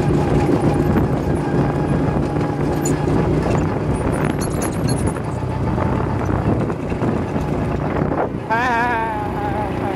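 Go-kart's small engine running steadily under way, with wind on the microphone. Near the end comes a brief high, wavering sound.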